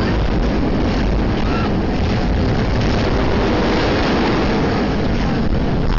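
Wind rushing over a phone's microphone and the low rumble of a roller coaster train running at speed, heard from a rider's seat.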